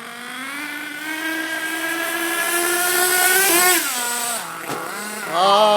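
Gas-powered RC car's small two-stroke engine at full throttle, its whine climbing steadily for about three and a half seconds, then dropping sharply as the throttle comes off. Near the end it revs up again.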